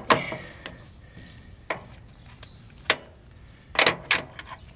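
Sharp metal clicks and clanks from a Wheel Horse garden tractor's steel idler pulley bracket as it is fitted into its mount under the frame. There is a knock at the start, single clinks about a second and a half and three seconds in, and a quick cluster of knocks nearly four seconds in.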